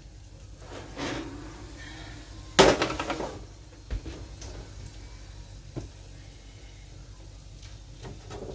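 Oven door opened and a metal baking pan of roasted potatoes pulled out, with one loud metallic clank about two and a half seconds in and a few lighter knocks after it. Near the end, a utensil clicks and scrapes against the pan.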